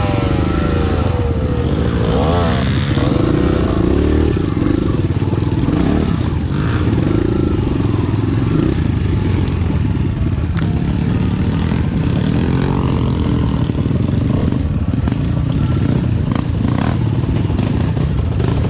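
Enduro motorcycle engine running under way, the revs rising and falling as it is ridden.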